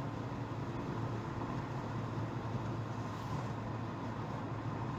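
Steady engine and tyre noise of a moving car, heard from inside the cabin.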